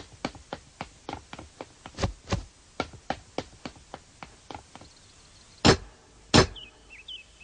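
Quick footsteps on wooden stairs, about four steps a second, then two loud knocks of a metal door knocker on a door.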